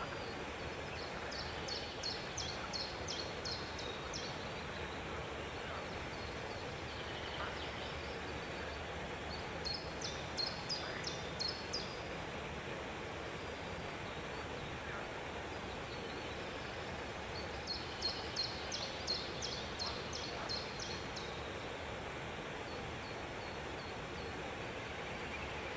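A bird calling in three bouts of quick, high, repeated chirps, several a second and each bout lasting two to three seconds, over steady background noise.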